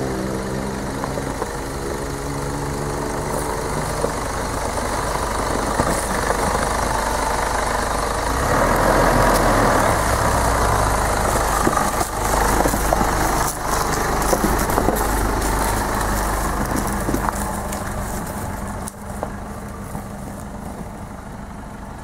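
A Ford Everest SUV's engine idling steadily. From about eight seconds in, a louder rushing noise joins it for roughly ten seconds, and scattered light clicks and knocks sound throughout.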